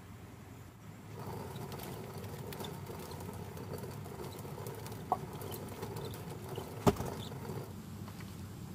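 Hand-turned stone mill grinding corn: a steady, gritty rumble of the stones rubbing, with scattered small ticks. A sharp knock about seven seconds in.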